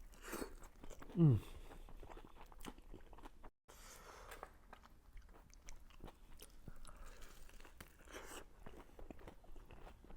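Close-up mouth sounds of biting into and chewing a gordita with barbacoa: scattered small crunches and wet chewing clicks. About a second in there is a short vocal sound falling in pitch, the loudest moment.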